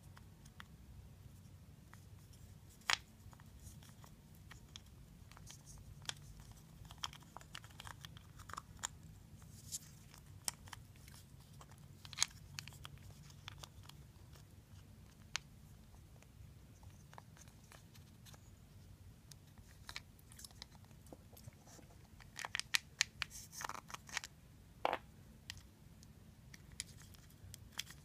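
Small parts of a Shimano spinning reel being handled and fitted together: scattered light clicks and rattles of metal gears and shafts against the plastic reel housing, with a quick run of clicks late on.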